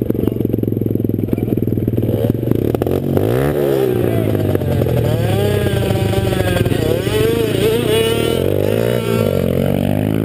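Small pit bike engines idling at a starting gate, then revved in repeated rising and falling blips, and pulling away under acceleration near the end.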